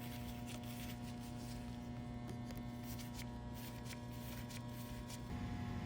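Steady low electrical mains hum, with a few faint light clicks of small parts being handled. The hum shifts slightly about five seconds in.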